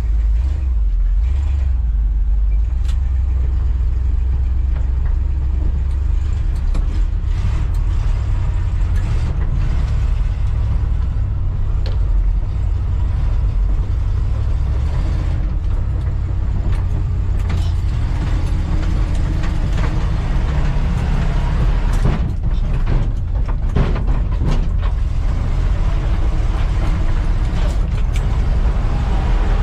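Square-body GM pickup truck's engine running as it drives, heard from inside the cab, a heavy low rumble throughout with scattered knocks and rattles.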